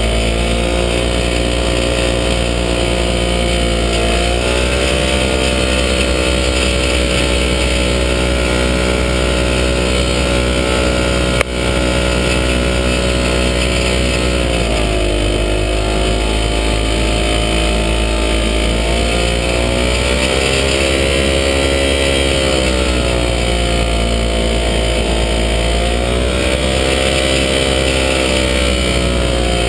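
Falcon XP ultralight's engine running as the aircraft taxis on grass, heard loud and close from on board; the engine speed rises and falls several times. A single sharp knock about halfway through.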